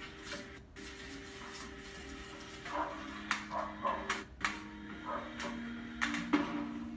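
A documentary soundtrack played over room speakers: soft sustained background music notes that change pitch a few times, with a run of short scrubbing strokes as a toilet is scrubbed by hand, and a couple more strokes near the end.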